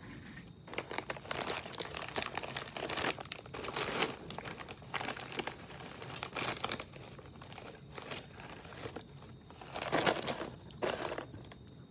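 Doritos Flamin' Hot Limón chip bag crinkling in repeated bursts as a hand rummages inside and pulls out chips.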